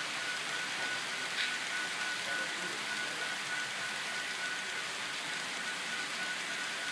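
Long model coal train's metal wheels rolling over the track, a steady rolling noise with a faint steady high whine and one click about a second and a half in.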